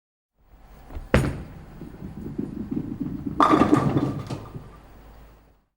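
A sharp knock about a second in, then low rumbling handling noise. A louder clatter of several knocks with a brief ringing tone follows about three and a half seconds in.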